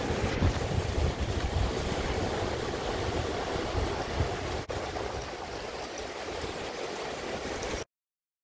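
Ocean surf breaking and washing up the beach, with a low rumble of wind on the microphone that is strongest in the first few seconds. It cuts off suddenly near the end.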